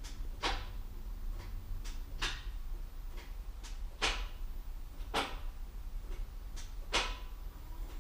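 Alfa Romeo 4C's dual-clutch transmission actuators clicking during a TCU calibration with the engine off: five sharp clicks at uneven gaps of one to two seconds, with fainter ticks between.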